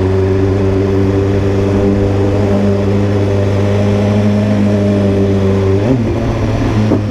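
BMW S1000RR's inline-four engine running at steady revs on the move, its steady note briefly broken twice near the end.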